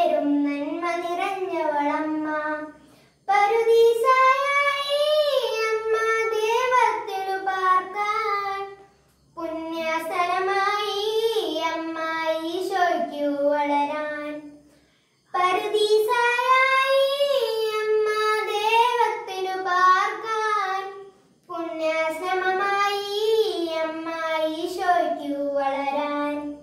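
A boy singing a Malayalam Marian hymn solo and unaccompanied, in long phrases with short pauses for breath about every six seconds.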